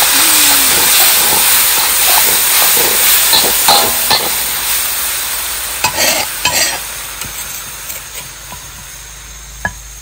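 Ground chilli paste sizzling in hot oil in a steel wok, just added and being stirred with a metal spatula. The sizzle fades steadily, with a few knocks and scrapes of the spatula against the wok about six seconds in and again near the end.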